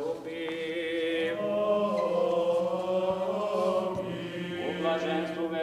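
Orthodox church chant: voices singing long held notes over a steady low drone, the melody moving slowly.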